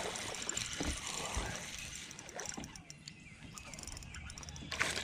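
Fishing reel being cranked as a hooked bass is reeled in, with irregular small clicks and rustling.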